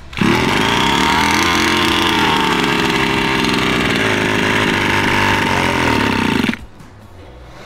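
36cc two-stroke petrol engine of a large RC buggy starting and running steadily for about six seconds, then cutting out abruptly. The owner takes the stall for the engine overheating.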